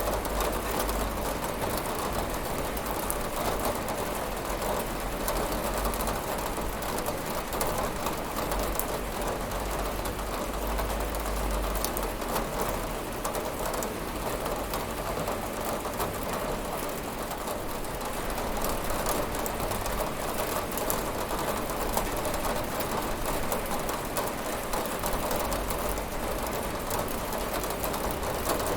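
Steady rain falling on a window, a dense patter of drops over a low rumble.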